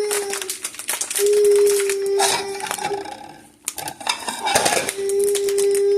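Clattering and clicking of kitchen things being handled. A steady high whine is held in two long stretches, about a second in and again near the end.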